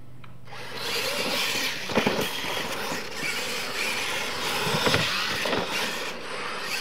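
Losi LMT radio-controlled monster trucks pulling away and racing on dirt. Their brushless electric drivetrains whine and their tyres scrabble through loose dirt. The sound starts about half a second in, with sharp thumps about two seconds in and again around five seconds.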